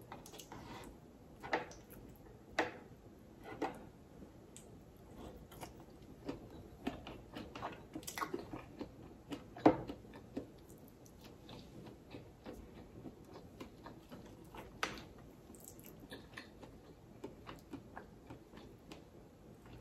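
Close-miked chewing and mouth sounds of someone eating seafood, with fingers picking at shrimp and mussel shells. Scattered soft clicks and smacks; the sharpest comes a little before halfway.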